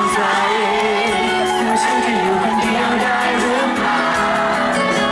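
Live Thai pop song: a male singer sings into a microphone over electric guitars and a steady drum beat, with shouts from the crowd of fans.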